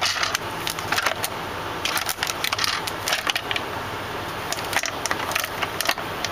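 Plastic water bottles crinkling and knocking as they are handled and set into a small refrigerator: a run of irregular crackles and clicks over a steady low hum.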